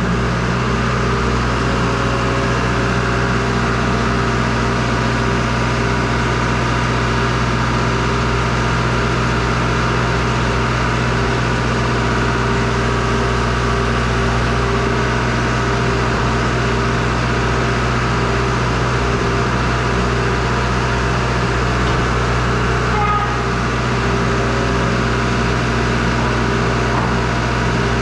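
Skid steer loader engine running steadily at an even speed, with a slight dip in level about 23 seconds in.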